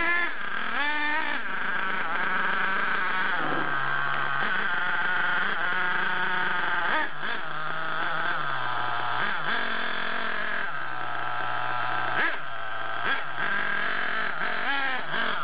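Radio-controlled MGT monster truck's small engine driving, revving up and dropping back again and again, its pitch rising and falling every second or two.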